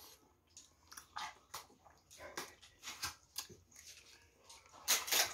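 Close-miked mouth sounds of eating rice and chicken curry by hand: irregular wet smacking, biting and chewing, louder near the end.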